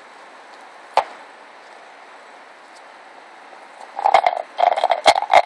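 Blue plastic dog bowl knocked about by two Cairn terrier puppies: one sharp knock about a second in, then a rapid run of loud knocks and clatters near the end.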